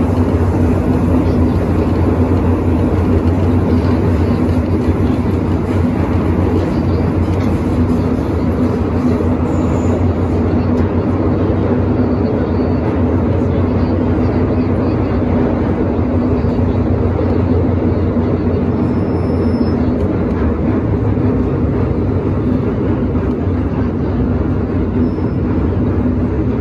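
MTR Island Line M-train running through a tunnel at steady speed, heard from inside the car: a loud, steady rumble of wheels on rails with a constant low hum.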